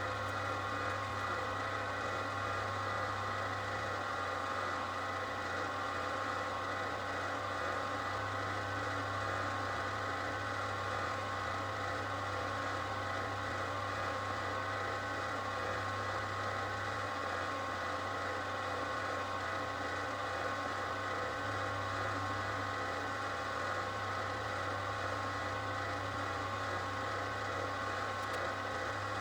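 A small electric motor runs steadily, with a constant hum and a bundle of steady whining tones that never change.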